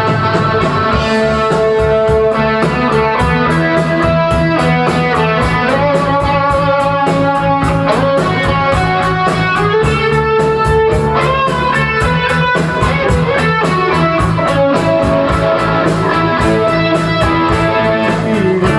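Live rock band playing a mellow song: an instrumental passage of electric guitars over bass and drums, with a steady cymbal beat.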